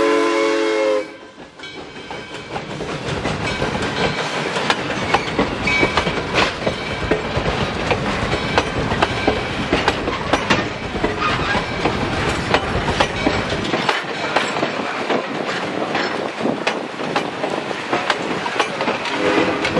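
Steam locomotive's chime whistle cutting off about a second in, then the wheels of passenger coaches clicking over rail joints as the train rolls past. The whistle sounds again from farther up the train near the end.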